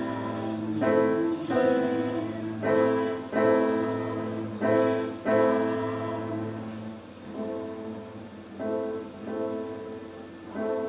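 Piano played solo: a series of struck chords that ring on, one about every second. They are louder at first and softer from about seven seconds in.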